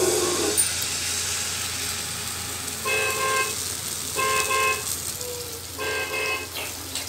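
Pancake batter sizzling in a hot oiled frying pan, a steady hiss that starts as the batter is poured in. A vehicle horn honks three times in the background, about three, four and six seconds in.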